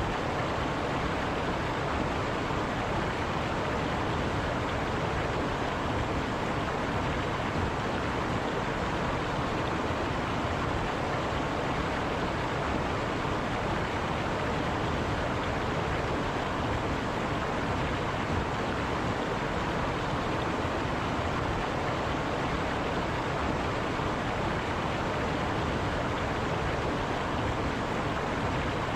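River water running over rocks: a steady, even rushing.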